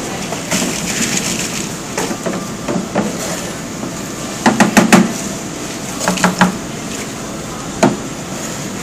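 Mice running in a metal wire exercise wheel, the wheel rattling and clicking, with clusters of sharp clacks about halfway through and again a little later, over a steady hiss.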